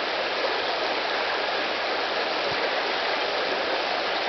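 River water rushing, a steady even rush.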